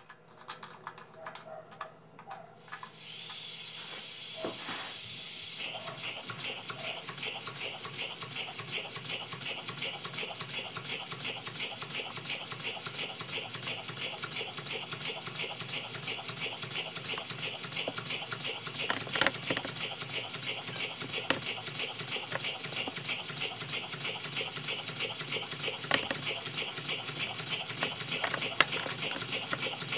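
Homemade double-acting model steam engine, running on compressed air rather than steam. A steady hiss of air starts about three seconds in, a few light clicks before it; from about six seconds the engine runs with an even, rapid beat of exhaust puffs, roughly three a second.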